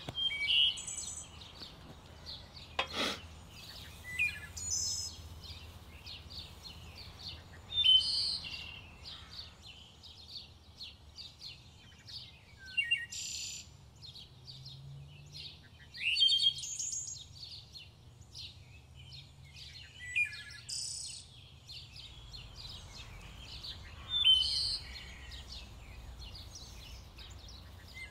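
Woodland songbirds singing, with a short bright phrase repeated about every four seconds over a faint steady background. A single sharp click sounds about three seconds in.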